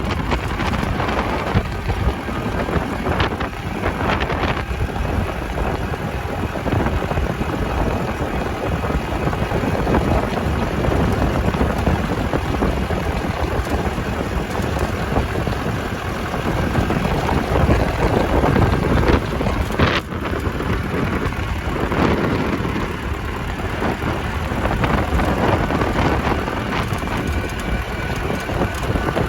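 Strong sandstorm wind gusting against the microphone: a steady, dense rush with a heavy low rumble.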